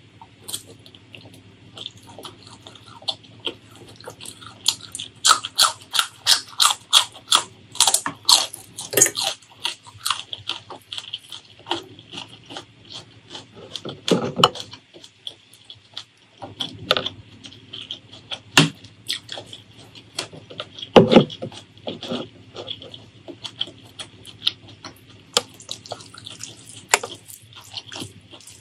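Close-miked chewing and wet mouth sounds of someone eating spicy beef and beef tripe curry. A fast run of sharp chewing clicks comes about five to ten seconds in, then scattered wet smacks. Near the end comes a soft squishing of rice and curry being mixed by hand.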